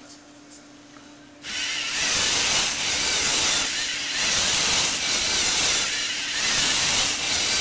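Lego NXT servo motors running the plastic gear train of a Lego Technic scissor lift: a loud, hissy whirring grind that starts about a second and a half in and swells and eases roughly every two seconds.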